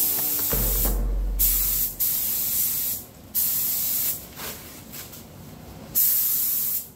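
Sata 1500 spray gun hissing as it sprays paint, in several bursts with short breaks as the trigger is pulled and released between passes.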